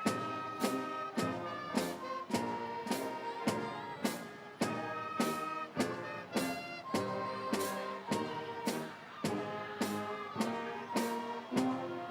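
Instrumental music with a steady beat, sharp strokes about every half second under sustained pitched notes.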